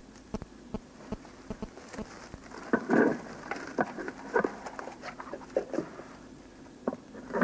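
A man eating by hand out of a pot. Scattered small clicks and knocks come with a few short noisy bursts, the loudest about three seconds in.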